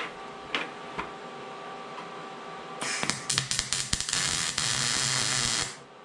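MIG welding arc on steel square tubing: a short weld that starts about three seconds in with a sputtering, stuttering crackle, settles into a steady sizzle, then cuts off abruptly when the trigger is released. A few light metal clicks from handling come before it.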